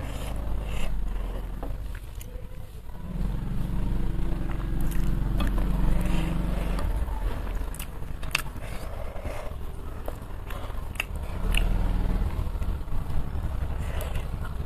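Close-miked eating sounds: chewing with wet mouth clicks and lip smacks, and fingers squishing rice against a plate. A low rumble swells underneath about a quarter of the way in and again past the middle.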